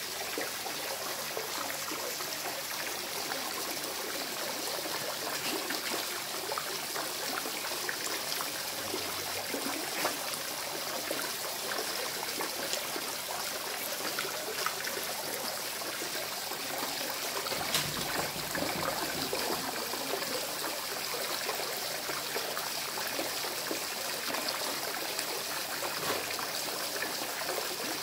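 Steady trickling, running water of a koi pond, with small scattered splashes and clicks from a husky lapping water at the surface.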